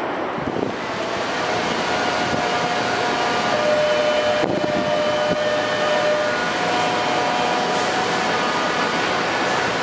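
São Paulo Metro Frota A train standing at the platform, its on-board equipment running with a steady hum and a whine of several steady tones.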